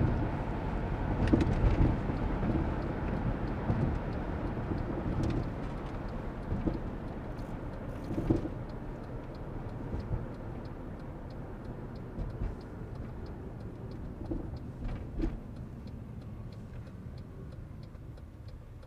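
Road and engine noise inside a moving vehicle's cabin, a steady low rumble with a few bumps, getting gradually quieter as the vehicle slows. Faint regular ticking runs under it: the chirping interference the camera's wifi puts into the audio.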